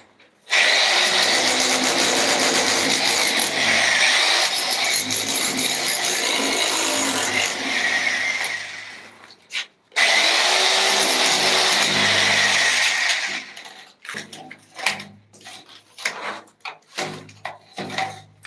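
A power tool running in two long stretches with a brief stop about nine and a half seconds in, then starting and stopping in short spurts near the end.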